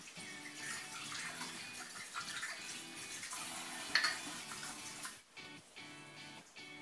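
Tap water running and dishes being washed at a kitchen sink over background music, with a sharp clink of crockery about four seconds in. The water sound stops suddenly a little after five seconds, leaving the music.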